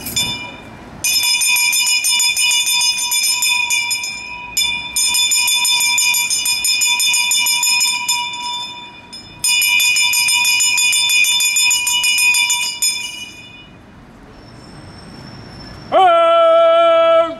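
Town crier's hand bell rung rapidly and continuously for about twelve seconds, with two short breaks, to call for attention. Near the end the crier begins a loud, long-held shout of "Oyez!"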